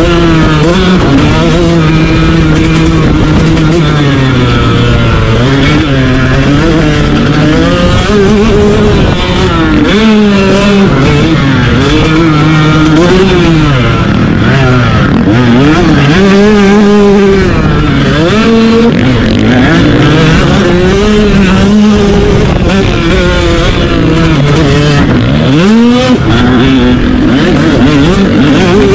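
Motocross dirt bike engine heard up close from onboard at race pace, its pitch rising and falling again and again as the throttle is opened and closed through the track, with a sharp rev climb near the end.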